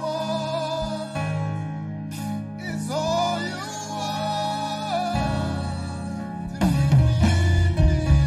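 Live gospel worship band playing keyboard, electric bass guitar and drums, with a voice singing the melody over held keyboard chords. About five seconds in a deep bass note enters, and at about six and a half seconds the drums and full band come in louder.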